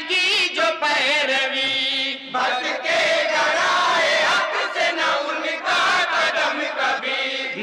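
A group of men singing an Urdu naat in chorus into microphones, with long held notes whose pitch wavers, and a short break between lines about two seconds in.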